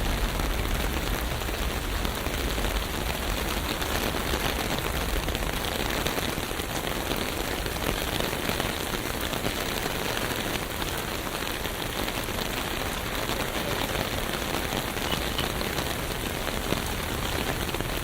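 Steady rain falling on city street surfaces, a dense, even patter of drops. A low rumble sits under it for the first several seconds and then fades.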